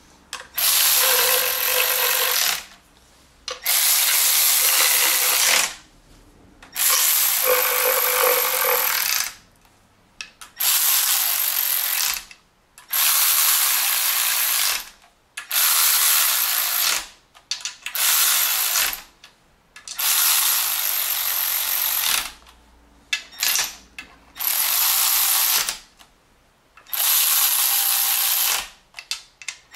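Milwaukee electric ratchet spinning down M6 timing cover bolts on a BMW M52 engine, snugging them rather than torquing them. It runs in about a dozen bursts of one to two seconds, a few with a steady motor whine, with short pauses between bolts.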